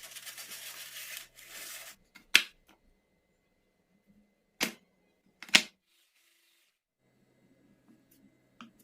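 Kitchen handling sounds: a rustle lasting about two seconds, then three sharp knocks on hard surfaces a second or two apart, and a faint click near the end.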